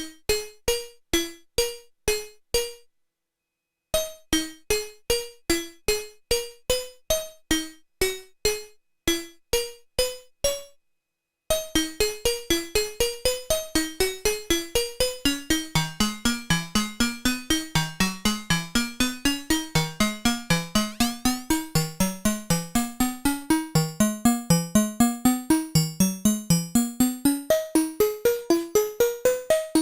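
Modbap Modular Osiris wavetable oscillator playing a sequenced melody of short plucked synth notes that die away quickly. The notes come at a moderate pace with a pause of about a second near the start, then about a third of the way in they give way to a faster, denser arpeggio that reaches lower notes.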